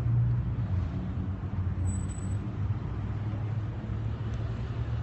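Road traffic going past: a steady low rumble of car engines and tyres, a little louder at the start.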